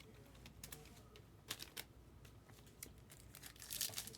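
Faint, scattered light clicks and ticks of trading cards being handled and slid against each other, a few irregular taps a second apart.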